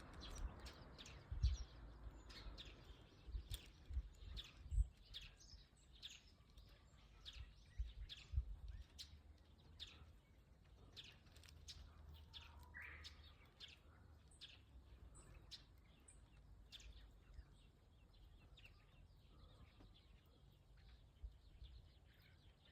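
Small birds chirping outdoors: many short, sharp chirps scattered irregularly throughout, faint, with a few low bumps in the first several seconds.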